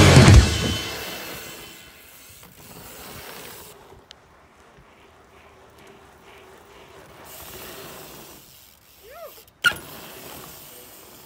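A rock track dies away in the first second, leaving a faint open-air background. Near the end there is a brief squeak that rises and falls, then one sharp knock from a BMX bike on the reservoir's concrete and brick.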